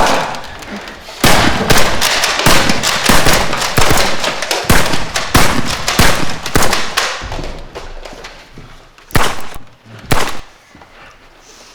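A rapid volley of sharp shots, many a second for about six seconds and thinning out, then two single shots about a second apart near the end.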